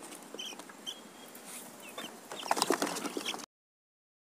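A young chick held in the hand peeping a few times with short high cheeps, then a louder burst of scuffling and wing flapping as it struggles while being given an eye-drop vaccine. The sound cuts off suddenly about three and a half seconds in.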